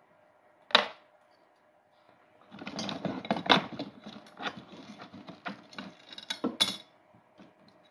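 Handling noise of small objects fiddled with in the fingers close to the microphone: one sharp click about a second in, then a fast, irregular run of small clicks and rustles for about four seconds.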